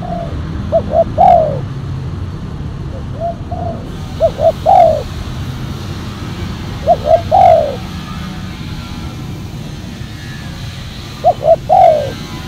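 Spotted dove cooing in four repeated phrases a few seconds apart. Each phrase is two short coos and then a longer, falling note.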